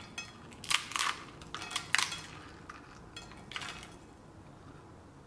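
A crisp deep-fried kuzhalappam, a rice-flour roll, crackling as it is broken apart by hand: about four short crunchy cracks over the first four seconds. The crunch is the sign of a well-fried, very crispy roll.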